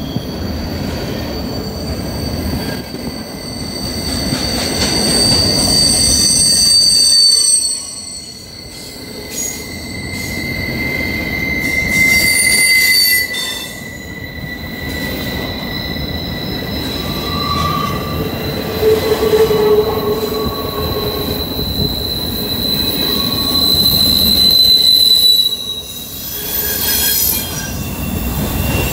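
Double-stack intermodal freight cars of a CSX train rolling past at close range on a curved trestle. Their wheels squeal against the rails on the curve in long, high-pitched tones that swell and fade several times over the rumble of the cars.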